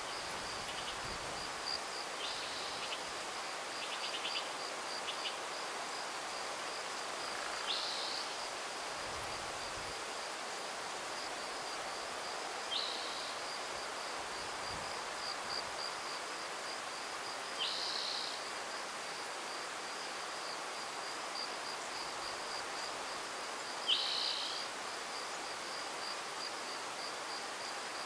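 An insect trills steadily with a high, evenly pulsing note, while a bird gives a short call about every five seconds, the last one the loudest, all over a soft, even hiss of outdoor air.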